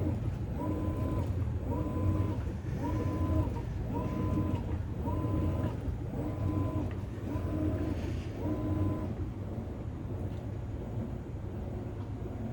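Maytag top-load washing machine agitating, its drive motor whining in strokes about once a second over a steady low hum. The strokes stop about nine seconds in, leaving the hum.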